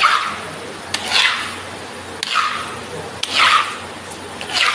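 Mop swished across a wet tiled floor to push away rainwater, about one stroke a second. Each stroke is a short swish that opens with a light tap.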